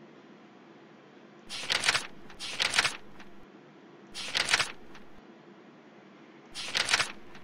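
Computer mouse scroll wheel turned in four short runs of rapid clicks, each under a second, over a faint steady hiss.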